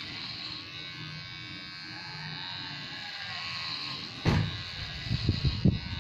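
Electric hair clippers buzzing steadily as they cut hair. About four seconds in, a sharp click, then loud, irregular low rumbling.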